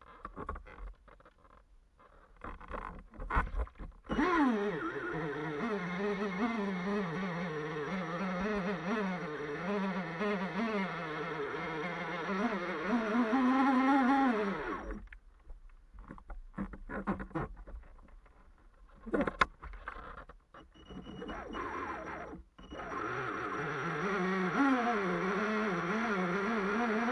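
The RC boat's small electric motor is run out of the water. It buzzes with an unsteady, wavering pitch and a faint high whine over it, stops, and starts again after some clicks and knocks of handling. The boat has taken on water, which the owner thinks got inside the control unit.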